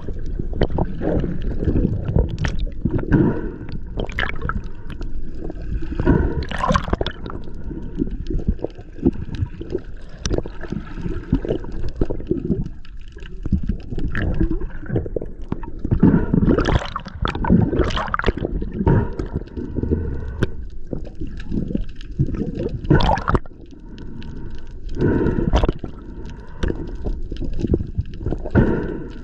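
Underwater water noise: a constant low rush of moving water with irregular bubbly gurgles and louder swishes every few seconds.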